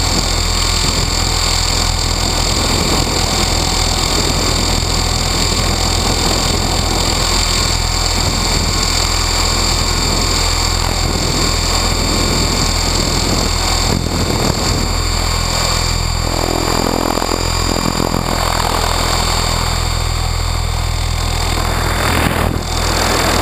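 Onboard sound of an Align T-Rex 600E Pro electric RC helicopter in flight: the brushless motor and gears whine steadily over the drone of the rotors, with wind rushing over the microphone. The helicopter is running on a 6S pack instead of its usual 12S. The pitch shifts a few times past the middle of the flight as it manoeuvres.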